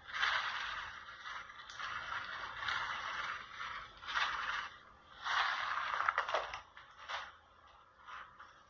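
A kitchen utensil scraping in a series of irregular strokes, loudest a little past the middle and fading near the end.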